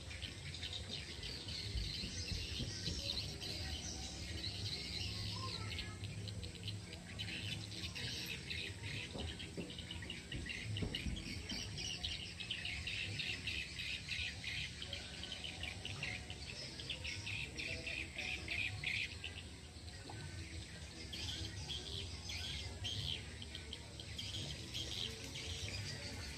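Birds chirping and calling, with insects alongside, in a continuous outdoor chorus over a low steady rumble.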